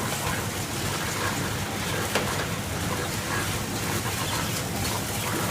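PFM Hurricane horizontal flow-wrapping machine running steadily as it wraps sausage rolls, with a few light clicks over a constant mechanical whirr.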